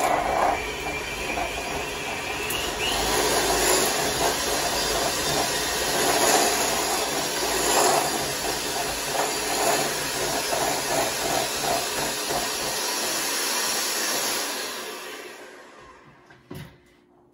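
Electric hand mixer running steadily, its beaters whipping a thick mix of chilled shea butter, coconut oil and olive oil in a bowl. The sound fades away over the last few seconds as the mixing ends.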